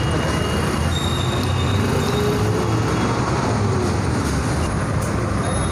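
Steady low rumble of passing vehicles, with a few faint high-pitched squeals.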